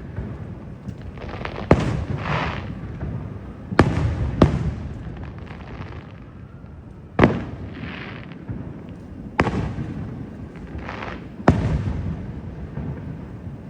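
Aerial fireworks shells bursting: six sharp bangs a second or two apart, two of them close together about four seconds in. Each bang is followed by a rolling rumble that fades before the next.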